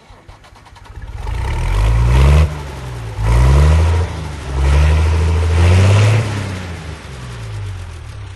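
A motor revving up and down in four loud swells, its pitch rising and falling, with a rushing hiss at each peak.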